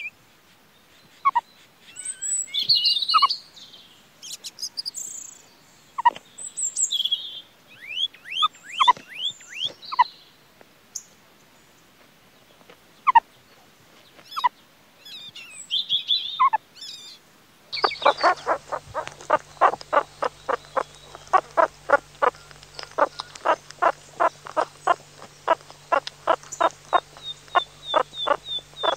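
Meerkat calls mixed with high bird chirps. At first there are scattered short calls among the chirping. From about two-thirds in comes a fast, steady series of short calls, about three a second.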